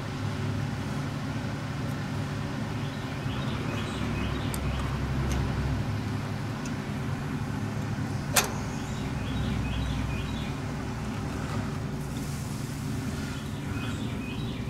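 Steady low hum of a motor or engine running, with one sharp click a little past the middle.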